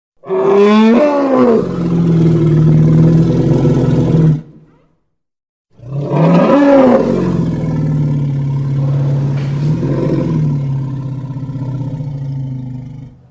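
Two long, deep monstrous roars: the first lasts about four seconds with its pitch sweeping up then down at the start, then after a short silence a second, longer roar rises in pitch, holds, and fades out near the end.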